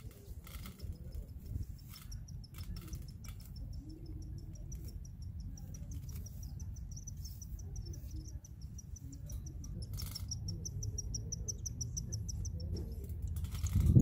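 Newborn cockatiel chicks begging while a parent feeds them: a fast, steady string of thin, high peeps, many a second, growing louder before stopping shortly before the end. A low rumble and a few soft knocks underneath, with a louder knock right at the end.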